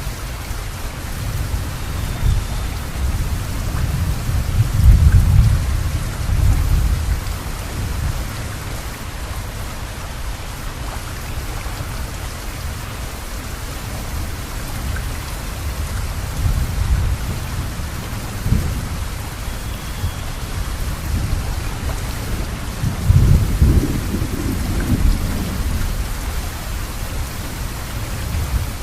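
Steady rain falling, with thunder rumbling low under it; the loudest rolls of thunder swell about five seconds in and again about twenty-three seconds in.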